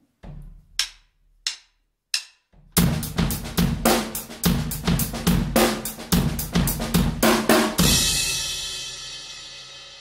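A short drum-kit jingle: a few quick hits, then a fast run of drum hits for about five seconds, ending on a cymbal crash that rings out and slowly fades.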